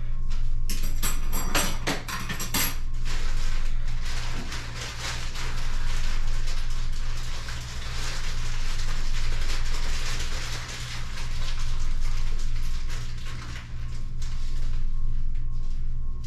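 Metallic clinking and rattling for about two seconds near the start, over a steady low hum and a hiss that swells and fades every few seconds.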